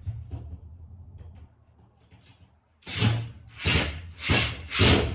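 Tool work on a truck's screwed-on panel while a screw is backed out: a few faint handling clicks, then from about three seconds in a run of short rasping strokes, about one and a half a second.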